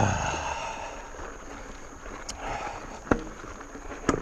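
Mountain bike being ridden up a dirt trail: steady tyre and drivetrain noise, with two sharp clicks about three and four seconds in.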